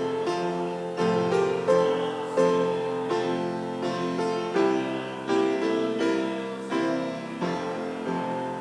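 Piano playing slow chords, a new chord struck every second or so and left to ring.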